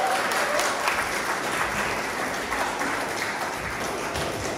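Audience applauding: a dense clatter of many people clapping, easing off slightly towards the end.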